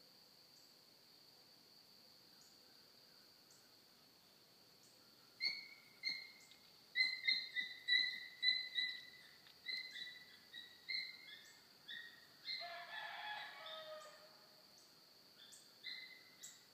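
A puppy chirping on a rabbit's trail: a string of short, high yips starting about five seconds in and coming in uneven runs, with one longer, lower cry past the middle.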